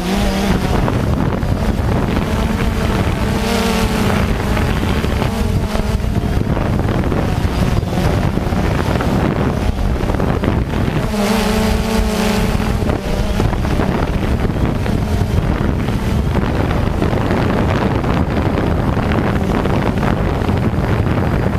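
Multirotor drone's electric motors and propellers running, heard from a camera mounted on the drone, with wind rushing over the microphone. The motor tone swells and wavers twice, about four seconds in and again around eleven seconds in.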